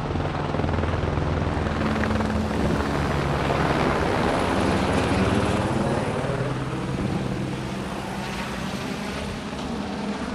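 Firefighting helicopter with a water bucket slung beneath it flying past, a steady rotor and engine drone that grows loudest about halfway through and then eases off.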